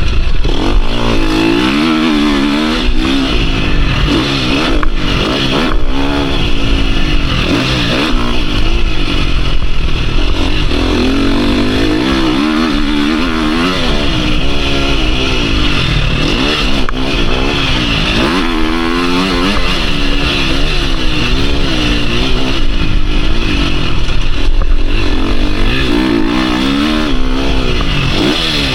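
2022 KTM 350 SX-F four-stroke motocross engine revving up and down again and again as the rider goes on and off the throttle and through the gears, over a steady low rumble, with a few sharp knocks.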